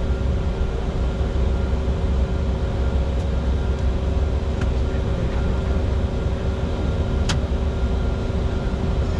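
Steady cockpit noise of a Bombardier Challenger 605 jet in flight: a continuous airflow rush and low hum with a few steady tones. A sharp click comes about seven seconds in.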